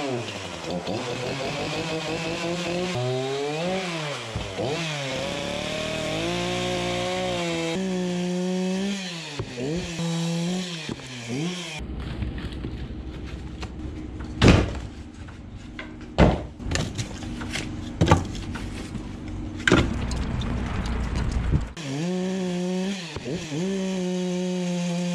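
Two-stroke carving chainsaw revving up and down as it cuts into a log. In the middle stretch the saw's pitch drops out, leaving a low rumble with four sharp loud knocks, before the saw runs steadily again near the end.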